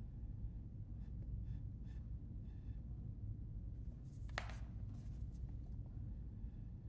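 Short puffs of breath blown through a drinking straw to push wet watercolor paint across paper, faint at first with one stronger, falling blow about four seconds in.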